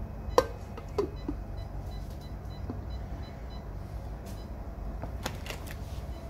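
Plastic lid knocking against a stainless-steel mixer-grinder jar as it is handled and fitted: a sharp click about half a second in, a few lighter taps after it, and a short cluster of clicks near the end, over a steady low hum of room noise.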